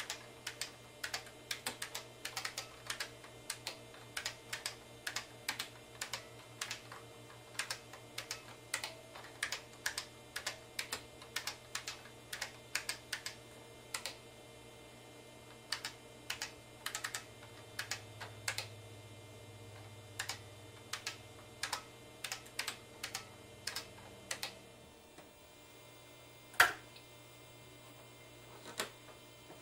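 Keystrokes on an original IBM PC keyboard (Model F), typed in quick bursts of clacks over a steady low hum. About 26 seconds in there is one much louder click, then a smaller one.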